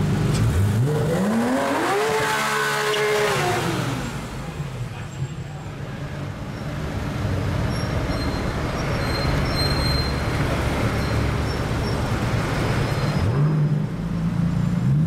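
Porsche 991 GT3 RS flat-six with a de-valved exhaust revving: the pitch climbs steeply to a high peak about two seconds in, then falls away. Broad engine and traffic noise follows, and near the end a second rev rises and holds.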